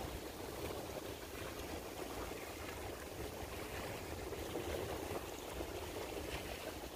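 Steady rush of moving water at the shoreline, with a low, uneven wind rumble on the microphone.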